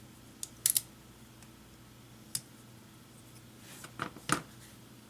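Folding knives being handled, giving a few short sharp clicks and taps: a quick double click just under a second in, a single click past two seconds, and a brief rustle ending in a sharp click near the end.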